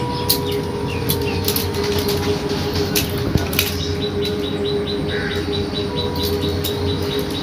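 Cotton cloth rustling as hands press and rub potato sticks wrapped in a handkerchief, over a steady background hum. Birds chirp in the background, and from about halfway a quick run of short high chirps repeats about six times a second.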